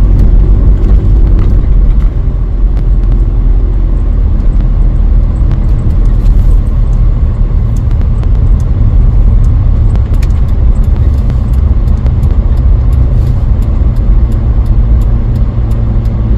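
Campervan running, a steady low rumble with engine tones throughout.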